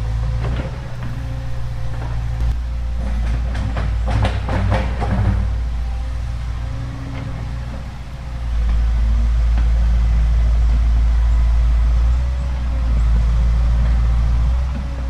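Excavator's diesel engine running steadily, with a cluster of sharp knocks and cracks about three to five seconds in. About eight seconds in the engine grows louder and heavier, working under load.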